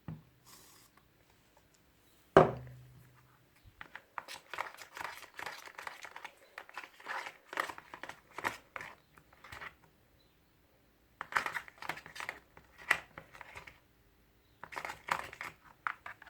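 Homemade slime of glue, shaving foam and boric acid being stirred by hand: irregular crackling and squelching in three stretches with short pauses, as the mixture thickens. One sharp knock about two seconds in.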